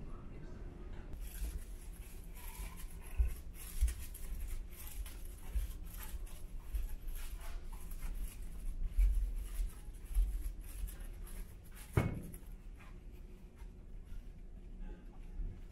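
Steady low hum of a car ferry under way, with footsteps and soft handling knocks as someone walks through the passenger corridor. One sharper knock comes about twelve seconds in.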